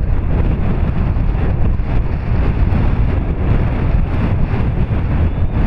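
Wind buffeting the camera microphone, a steady low rumble.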